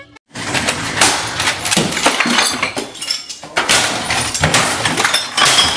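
Things being smashed in a room: a run of repeated crashing blows and breaking, loud and dense throughout after a brief gap at the start.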